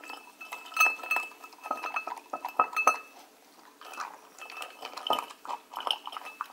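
Border collie eating from a ceramic bowl: repeated sharp clinks of food and teeth against the bowl, each with a brief ring. There is a short pause about three seconds in, then the clinking resumes.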